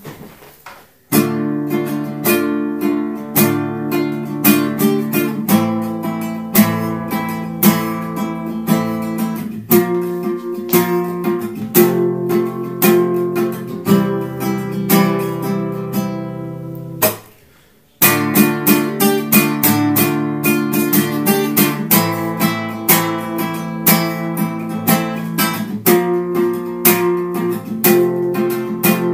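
Classical acoustic guitar played in a steady rhythm of strummed chords, starting about a second in. The playing stops for about a second just past halfway, then picks up again.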